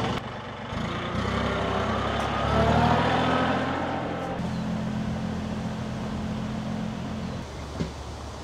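An engine running. It revs up about two and a half seconds in, holds a steady pitch, then drops back near the end.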